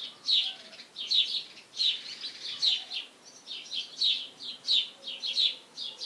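Swallows chirping: short, bright chirps repeating about twice a second, some coming in quick pairs.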